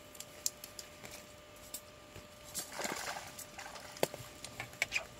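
Small splashes and drips of water with scattered sharp clicks and knocks, and a short burst of splashing about three seconds in.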